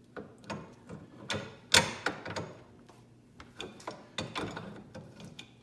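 Irregular light metallic clicks and knocks from a bicycle's crank, chain and bottom-bracket parts being handled and worked by hand, with one sharper knock near the two-second mark.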